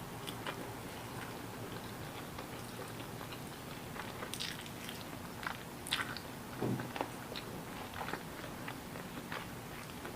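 A person chewing and biting food close to the microphone: scattered mouth clicks and small crunches, with a few louder bites around the middle.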